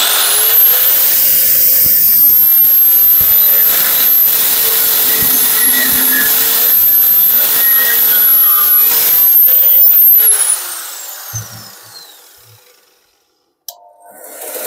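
Angle grinder with a cut-off disc spinning up and cutting through a steel flat bar with a steady high whine, then switched off about ten seconds in and winding down over a couple of seconds. A short knock follows near the end.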